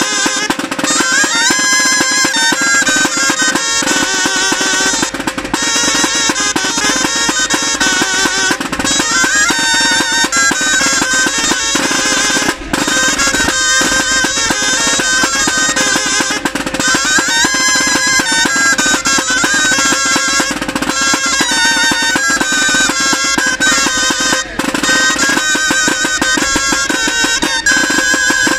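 Background music: a lively traditional street-band tune, with drums keeping a steady beat under wind instruments playing the melody.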